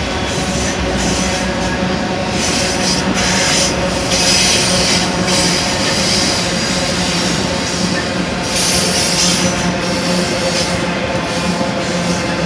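Autorack freight cars rolling past on a curve: a steady rumble of steel wheels on rail, with high-pitched wheel squeal coming and going a few times.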